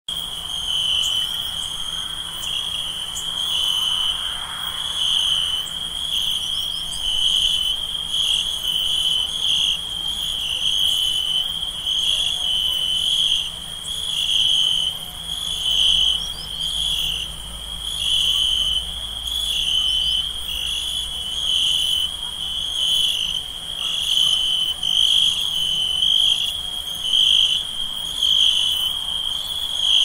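Night chorus of crickets chirping: a continuous high-pitched trill that pulses in regular beats.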